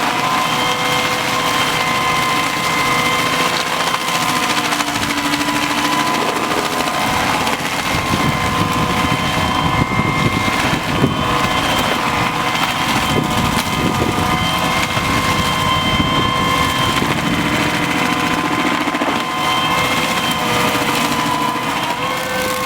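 Stump grinder's engine running steadily at work, its cutter wheel grinding into a tree stump, with a rougher stretch of grinding in the middle.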